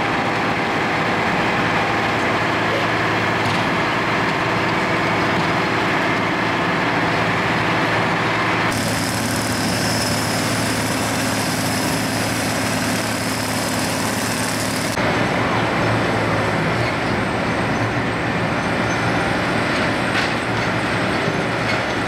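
Case skid steer loader's diesel engine running steadily as the machine works, its bucket pushing and scooping broken pavement. The sound changes abruptly twice, about nine and fifteen seconds in.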